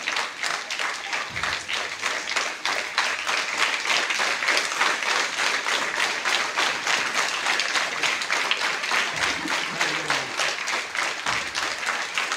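Steady applause from a crowd, many hands clapping.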